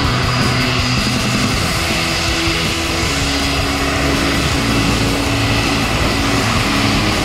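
Airbus A320 jet engines at taxi power, a steady rumble with an even hiss.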